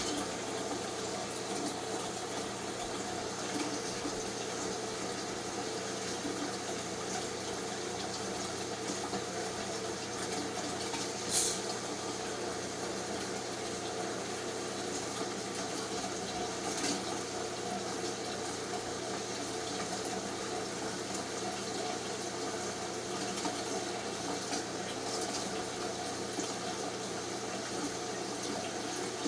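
A large snake sneezing: one short, sharp burst of expelled air about eleven seconds in, with a fainter one some five seconds later, over a steady rushing background noise.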